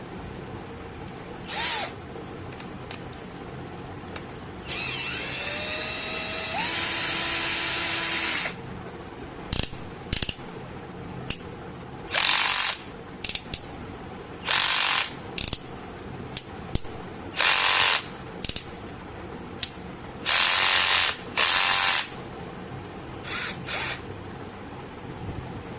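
Cheap 12 V cordless drill running in short trigger bursts. About five seconds in, one longer run of a few seconds has a motor whine that rises in pitch as it speeds up; after that come several brief full-speed spurts.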